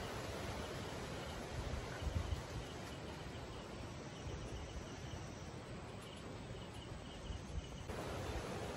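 Crickets chirping in short trains of rapid pulses over a low rumble, with a few low bumps about two seconds in and near the end.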